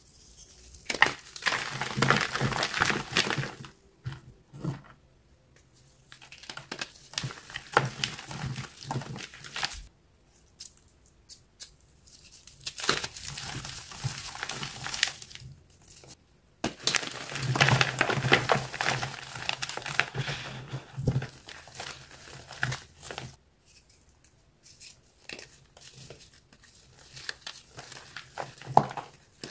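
Hands crushing and crumbling powdery, chalk-like blocks: crisp crunching and crackling in several long spells with short pauses between, as the blocks break into powder.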